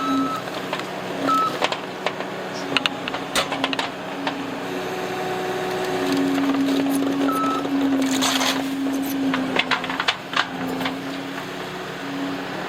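Case TR270 skid steer engine running at a steady drone that rises and falls a little, with scattered sharp metallic clanks and knocks as it works.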